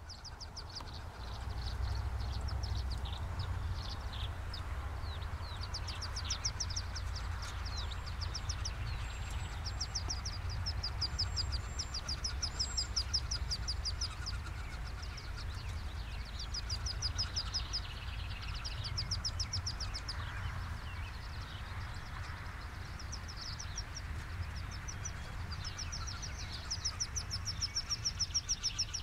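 A wood duck hen calls to her ducklings on the ground below the nest box. Runs of quick, high, thin peeping notes repeat again and again over a steady low rumble.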